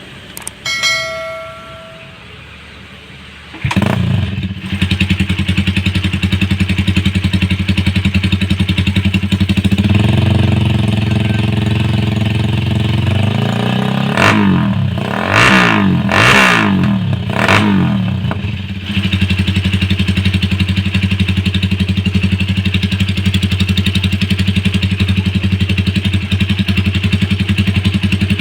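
Suzuki Raider 150 single-cylinder four-stroke engine breathing through a Daeng replica exhaust: after a few short beeps it starts about four seconds in and idles. The idle rises, the engine is revved up and down several times, then it settles back to a steady idle.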